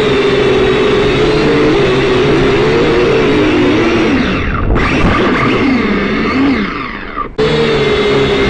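Syma X5C quadcopter's small electric motors and propellers whirring with a steady high whine. Its pitch wavers as the throttle changes, swoops up and down and fades in the middle, then cuts off abruptly and comes back as the steady whine.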